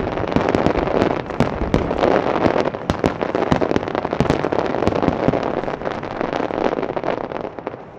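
A large fireworks set piece going off in a dense, rapid string of bangs and crackling pops. It dies away near the end.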